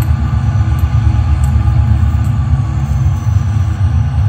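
HO scale model diesel locomotives running on the track: a steady low rumble with a few faint clicks.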